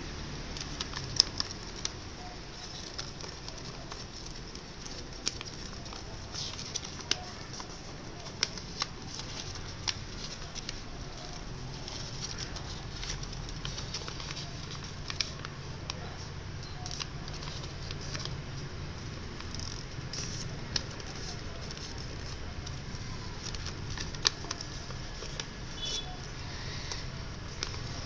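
Thin origami paper crackling and rustling as it is folded and creased by hand, with irregular sharp crinkles every second or two over a steady background hiss.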